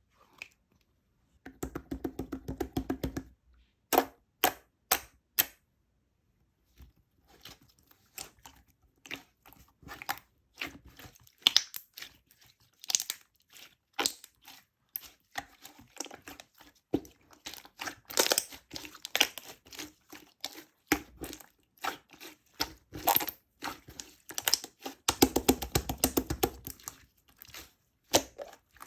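Crinkly material being handled by hand: many sharp crackles and clicks, with longer tearing, crinkling stretches about two seconds in and again near the end.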